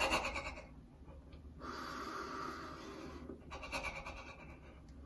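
A man breathing noisily: a short sharp breath at the start, a long drawn breath of about a second and a half, then a few shorter breaths near the end.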